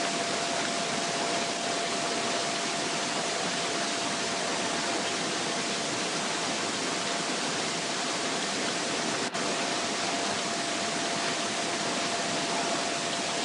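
Steady hiss of recording noise with a faint steady tone underneath, broken by one brief dropout about nine seconds in. No distinct snips from the scissors cutting the aluminium can stand out.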